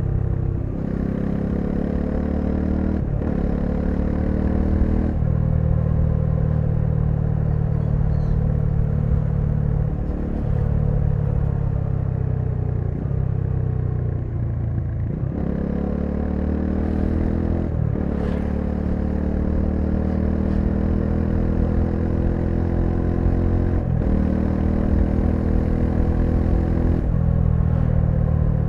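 Bajaj Dominar 400's single-cylinder engine riding under load, the revs climbing and then dropping back sharply at gear changes several times.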